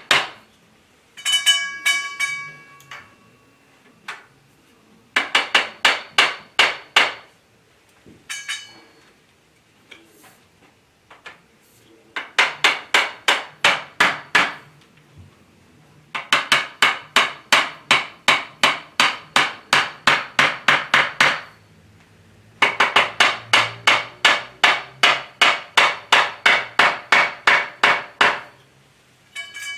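Hammer blows in quick runs of about four a second, driving plastic connector pieces into the steel tubes of a grow-tent frame. Near the start the metal rings briefly after the blows.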